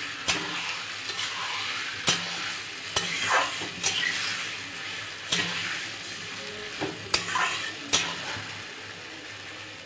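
Marinated chicken sizzling in a metal kadai as a spatula stirs and scrapes it through the fried onions, with sharp clinks of the spatula against the pan every second or so. The sizzle grows a little quieter near the end.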